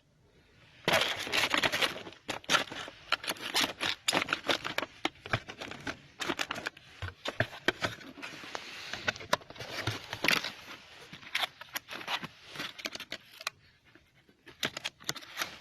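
Rustling, scraping and clicking of a car alarm kit's packaging and parts being handled. It is a busy, irregular run of small sounds that starts abruptly about a second in and thins out near the end.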